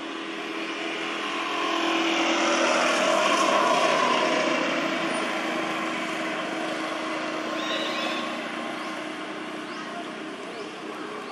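Engine drone of something passing at a distance: a steady hum that swells over the first few seconds, peaks, then slowly fades away.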